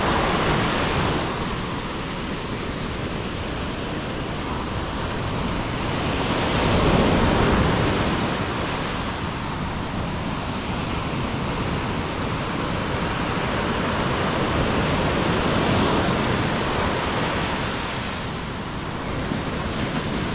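Ocean surf breaking and washing on the beach: a steady rushing that swells and eases every few seconds, loudest about seven seconds in, with wind on the microphone.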